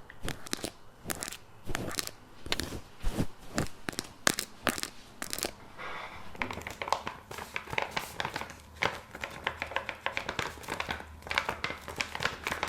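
Close-miked ASMR trigger sounds: a rapid, irregular run of crinkling, crackling and tapping from hands handling objects, with no break.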